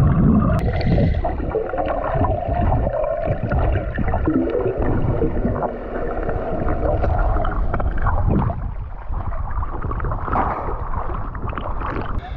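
Muffled underwater water noise heard through a submerged camera: steady rushing and gurgling from the diver's movement and fin kicks, with bubbles.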